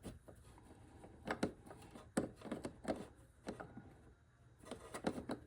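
Faint, scattered clicks and light knocks of hand tools and metal parts being handled, about a dozen short, irregular taps with no steady rhythm.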